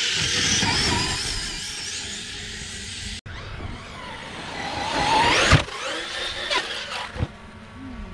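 Radio-controlled car's motor whining, rising and falling in pitch as the car speeds up and slows on sand. About five and a half seconds in, a climbing whine ends in a sharp thump, the loudest moment.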